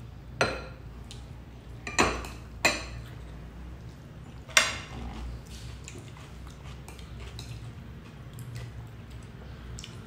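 Metal spoons clinking against ceramic bowls and plates: four sharp clinks with a short ring in the first five seconds, then lighter taps.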